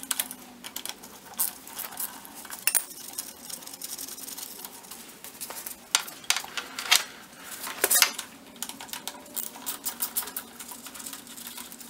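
Socket wrench and Allen key clinking against the rear sprocket bolts of a Honda 400EX quad as the bolts are undone: irregular metallic clicks and clinks, with a few sharper knocks scattered among them.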